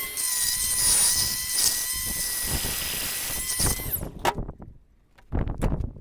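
Cordless die grinder running with a steady high whine and a gritty grinding hiss as it cuts a slot into a steel 7/8 socket, winding down about four seconds in. A few knocks and clatters of the tool being set down on the metal truck bed follow.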